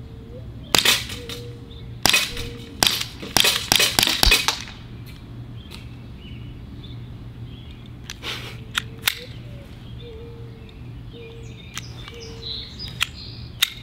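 Sig P365 CO2 BB air pistol firing a quick string of about seven sharp cracks within the first four seconds or so, each shot cycling the blowback slide, then a few fainter clicks. The 12-gram CO2 cartridge has fired close to 100 rounds and the blowback is getting weaker.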